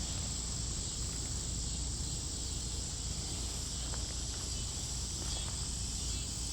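Steady outdoor chorus of insects, a continuous high-pitched drone with no breaks, over a low background rumble.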